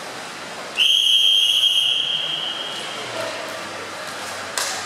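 Swimming referee's whistle: one long, steady blast starting sharply about a second in, loud for about a second and then fading away. It is the signal for swimmers to step up onto the starting blocks. A sharp knock comes near the end.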